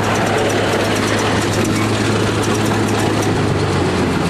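Bulldozer's diesel engine running steadily with a deep hum and fine rapid ticking over it. The hum shifts a little under four seconds in.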